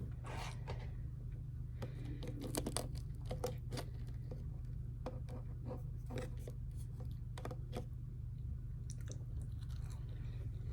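A person chewing and eating: a run of short, irregular crunches and mouth clicks over a steady low hum.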